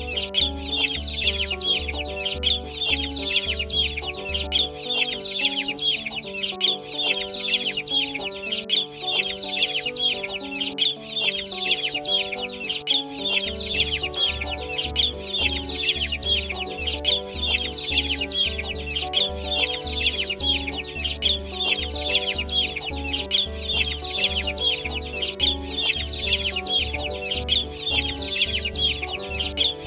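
Background music with a steady beat and a stepped melody; the bass beat drops out about five seconds in and returns around thirteen seconds. Over it, a flock of chickens calls continuously with dense high chirping.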